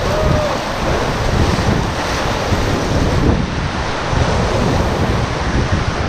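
Whitewater of a river rapid rushing and churning around an inflatable raft, with wind buffeting the microphone.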